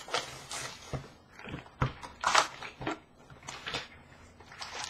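2019-20 Upper Deck SP Authentic hockey card packs being handled and torn open, their wrappers crinkling in irregular short bursts.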